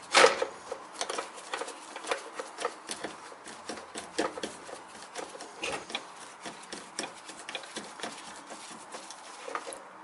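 Phillips screwdriver working a small screw out of a car door lock actuator's metal bracket and plastic housing: irregular small clicks and scrapes of the bit and the handled part, the loudest click right at the start.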